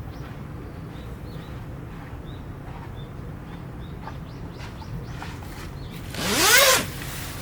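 Small birds chirping faintly and repeatedly over a steady low rumble. About six seconds in, a brief loud whooshing swell whose pitch rises and then falls, lasting under a second.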